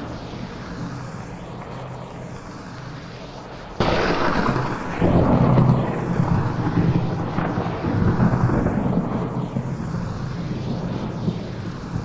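Thunderstorm recording with a steady hiss of rain, then a sudden thunderclap about four seconds in that rolls on as long, deep rumbling thunder, swelling again twice before slowly easing. The sound is panned around the listener in 8D style.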